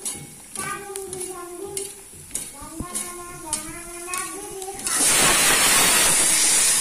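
Panipuri puris frying in hot oil in an iron kadai, sizzling, with a few light ticks of a slotted spoon against the pan. About five seconds in the sizzle swells into a loud, steady hiss.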